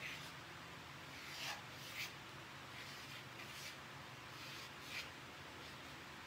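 Faint, short scratchy taps of a paint pen's tip dabbing dots onto a painted cutout, about five of them spaced irregularly.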